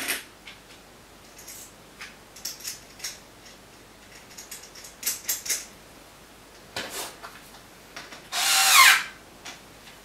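Small metallic clicks and rattles of a washer and nut being fitted and tightened on a car battery's clamp terminal. A louder scrape, about half a second long and falling in pitch, comes near the end.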